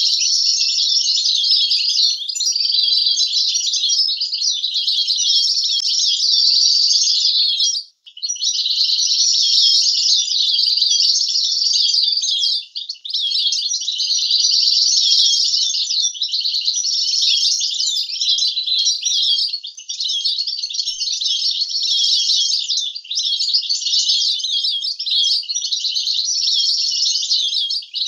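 European goldfinch singing a long, continuous twittering song of rapid trills mixed with clear held notes, broken by one brief pause about eight seconds in.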